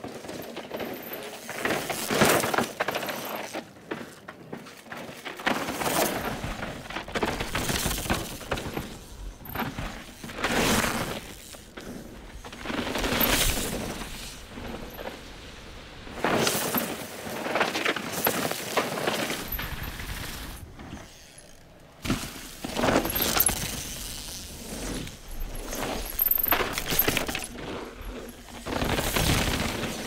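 Downhill mountain bikes ridden hard over dirt trails: tyres scrubbing and skidding through dirt and loose leaves, with the bikes' rattle and clatter, in a string of short loud passes with quieter gaps between.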